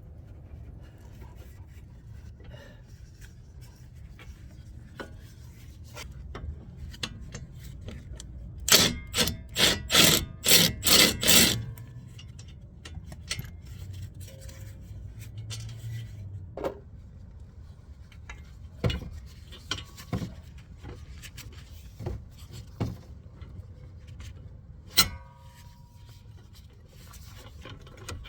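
Hand tools working on a front brake caliper: a quick run of about eight rasping strokes a few seconds in, then scattered metallic clicks and knocks, one of them ringing briefly.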